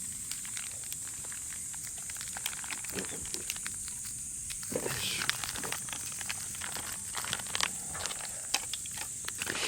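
Campfire crackling: irregular sharp pops and snaps from burning wood over a steady hiss.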